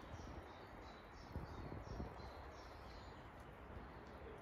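A woodland bird calling faintly, a quick series of short high chirps about twice a second, over a steady hiss of outdoor background noise with a few soft low thumps.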